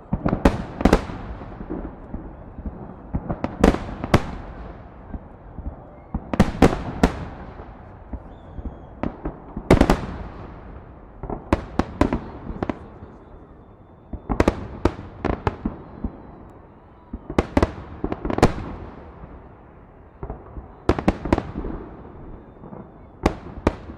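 Holiday fireworks salute: volleys of several sharp bangs about every three seconds, each volley followed by a rolling echo that dies away before the next.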